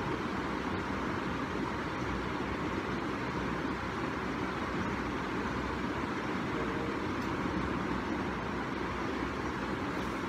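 A steady, unchanging hum and hiss of background noise, with no distinct events.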